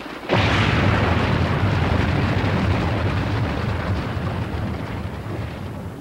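Sound effect of a rockslide crashing into a lake: a sudden loud boom about a third of a second in, then a long deep rumble that slowly fades.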